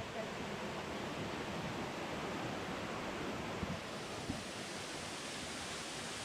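Steady rush of water from a waterfall, with a couple of faint knocks about four seconds in.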